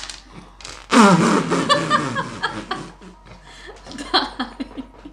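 A person's non-speech vocal sound with a falling pitch about a second in, among scattered sharp clicks.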